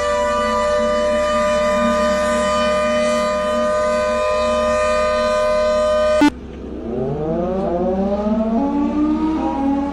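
Warning siren sounding a steady, multi-toned wail that cuts off abruptly a little after six seconds in; a second siren then starts low and winds up, rising in pitch.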